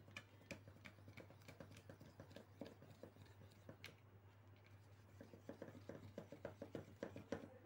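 Pencil tip pressed hard and rubbed in circles on the top of a soda can: faint, quick scratching and ticking, faster near the end. A steady low hum runs underneath.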